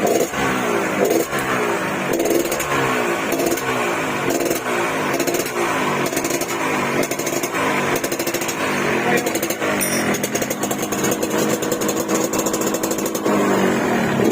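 Yamaha RX-King two-stroke single-cylinder motorcycle engine blipped over and over through a 'garing' aftermarket exhaust, a crisp rattling note with repeated short rises in pitch and a longer held rev near the end.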